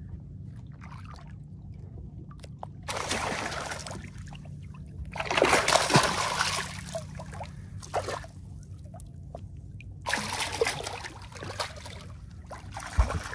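A hooked smallmouth bass thrashing and jumping at the surface beside the boat, splashing the water in several separate bursts; the biggest splash comes about five to seven seconds in. A steady low motor hum runs underneath.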